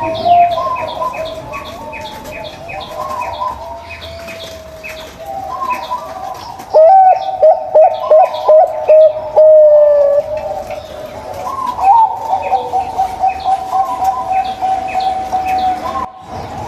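Zebra doves (perkutut) cooing in overlapping trilled, stuttering phrases, with a loud run of quick notes about seven seconds in. A train of short high chirps runs beneath the cooing.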